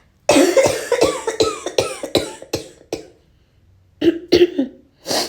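A woman coughing in a fit: a rapid run of about nine short coughs, then after a pause of about a second a few more and a final one. It is acted as the cough of an asthma flare-up.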